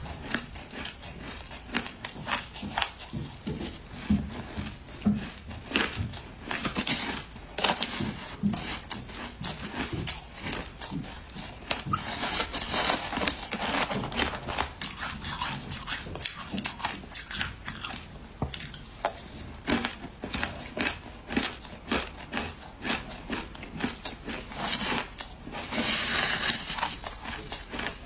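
Shaved ice crunching as it is chewed and as a metal spoon scrapes and digs through it in a tray: a dense run of irregular crackling crunches, thickest near the end.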